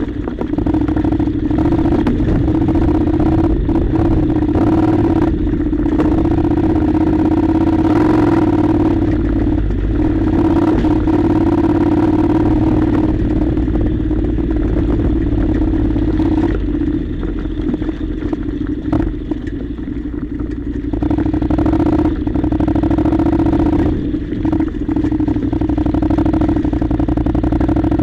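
Honda NC700's parallel-twin engine running at a low, steady pace while the motorcycle rolls over a loose gravel track, with stones clattering under the tyres. The engine eases off and gets somewhat quieter for a few seconds about two-thirds of the way through, then picks up again.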